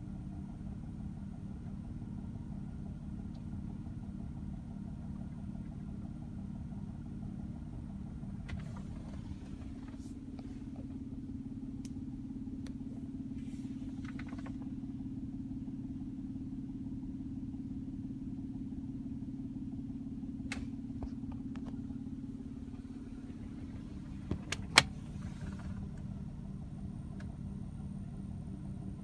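2004 Nissan Murano's 3.5-litre V6 engine running steadily with a rapid low knocking. A few sharp clicks come through, the loudest about three-quarters of the way in.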